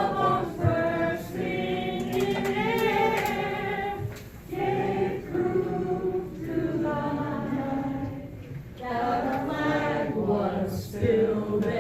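Voices singing together without instruments, in long held notes and phrases with brief pauses between them.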